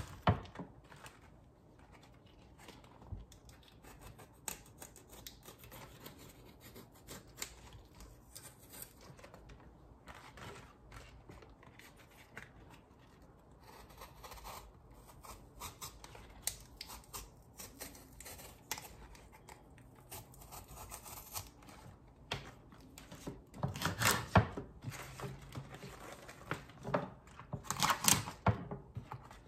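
A kitchen knife slicing the thick stems out of raw collard green leaves: crisp cutting and tearing of the leaves and stems, with leaf rustle. Short strokes run throughout, and a few louder cuts come near the end.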